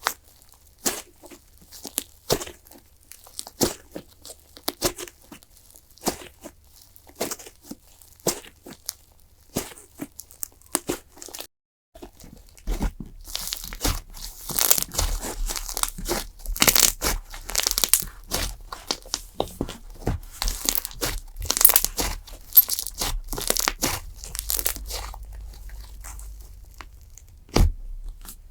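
Clay slime being worked by hand, giving short crackling and tearing pops. The pops come one at a time at first; after a short break about twelve seconds in they come thick and fast, with a last loud pop near the end.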